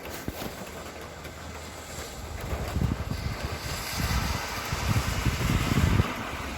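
Wind gusting against the microphone outdoors, irregular low buffeting over a steady wash of noise, the gusts growing stronger from about halfway through.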